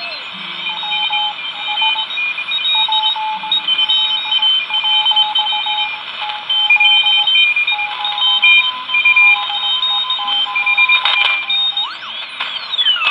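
Morse code signals from several amateur stations received on a regenerative receiver tuned to the 40 metre band: keyed beeping tones at different pitches over steady band hiss. Near the end a whistle sweeps down in pitch as the receiver is tuned across the band.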